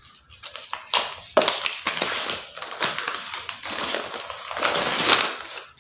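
Gift wrapping being torn open and crumpled: a run of crackling rips, heaviest about a second and a half in and again near the end.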